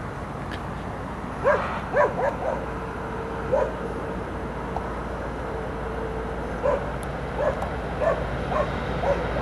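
A dog barking in short, sharp yaps, a cluster of them about a second and a half in and another run from about seven seconds in, over a steady low rumble.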